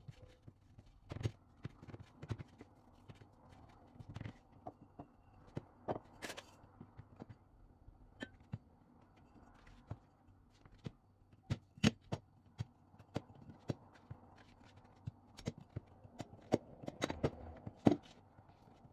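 Hands pressing and patting pie dough flat on a plastic cutting board: irregular soft taps and knocks, a few sharper clicks among them.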